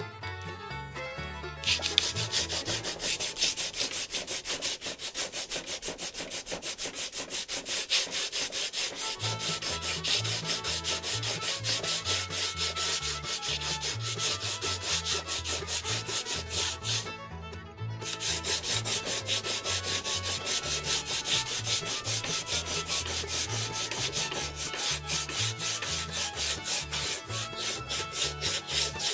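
Sandpaper on a sanding block rubbing rapidly back and forth along a glued-up fishing-rod blank, sanding off excess glue. The strokes start about two seconds in, stop briefly past the halfway mark, then carry on.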